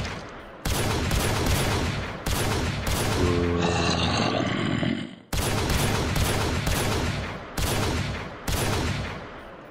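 Handgun gunfire: a dozen or so loud shots in clusters, each crack trailing off in a long echo, with a quick run of shots about a second in and more near the middle and end.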